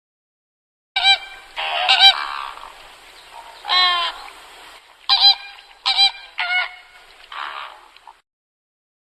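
Farm birds calling: a run of short, harsh, pitched calls and one longer wavering call, with rough hissing stretches between them. The calls start about a second in and stop about a second before the end.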